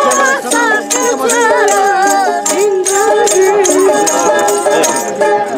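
Boys singing a Nepali folk song and bowing sarangis, the small fiddles sounding steady tones under the sung melody, with a rhythmic jingle keeping time.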